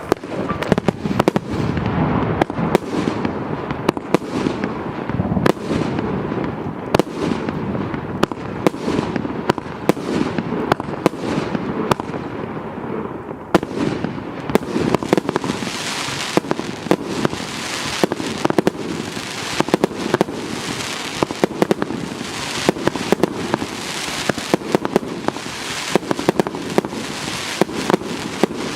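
A 200-shot consumer firework cake with 1.2-inch tubes firing in quick succession, about one or two sharp bangs a second. From about halfway through, a steady high hiss fills the gaps between the shots.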